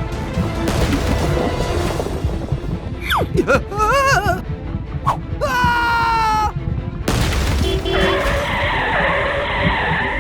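Background music with cartoon sound effects: a falling whistle-like sweep, then wavering, warbling pitched glides in the middle.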